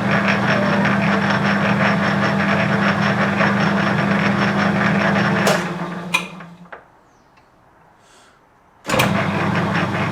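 Metal lathe taking a threading cut on steel, with a steady motor hum under a rough chattering cut: tool chatter from too deep a cut. About five and a half seconds in there is a click and the lathe runs down to a stop. After a short quiet it starts up again near the end.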